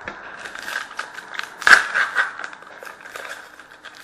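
A hockey card pack wrapper being torn open and crinkled by hand: irregular crackling, loudest a little under two seconds in.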